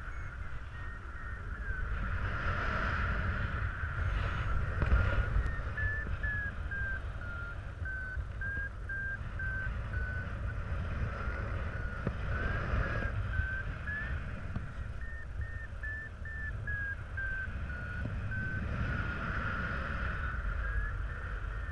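Paragliding variometer beeping in quick short pulses that step up and down in pitch, the sign of climbing in lift, over steady wind rushing on the microphone.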